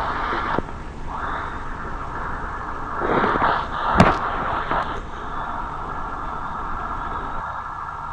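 Road traffic passing, with a sharp knock about four seconds in.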